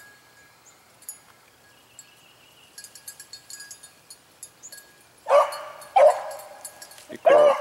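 A beagle baying on a rabbit's scent trail: three loud bays, starting about five seconds in.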